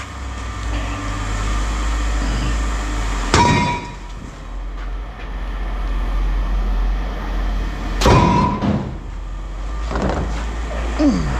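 Pieces of scrap metal being thrown down, with two loud ringing clangs, over a steady low hum; a short falling squeak near the end.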